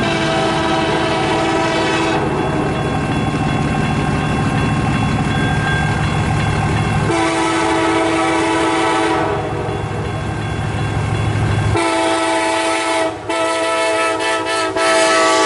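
CN freight locomotives sounding their multi-note air horn: a blast that ends about two seconds in, another from about seven to nine seconds, and a long blast near the end, with the low rumble of the passing train beneath the first two.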